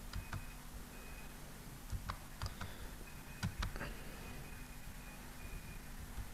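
Faint, irregular computer clicks, mouse and keyboard, over low room noise, with a faint high electronic tone that comes and goes.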